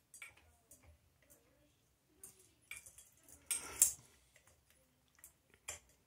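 Small clicks and clinks of a ceiling fan light switch's pull chain being fed through the fixture's hole, with a louder clatter about three and a half seconds in.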